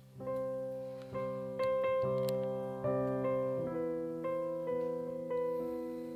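Background piano music: a gentle melody of single notes and chords struck about every half second, each fading away.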